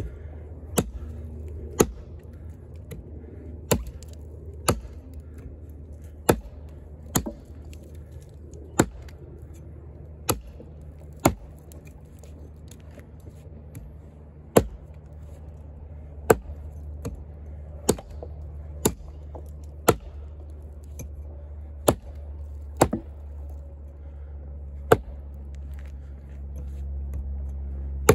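Kobalt 14-inch camp axe chopping into a fallen dead log: a sharp chop every second or so, about twenty in all, with a longer pause around the middle. The bit is biting into the wood rather than bouncing off. A steady low rumble runs underneath.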